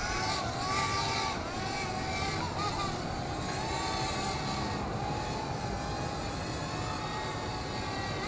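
WL Toys Q242G micro quadcopter in flight, its motors and propellers making a steady whine whose pitch wavers up and down with the throttle.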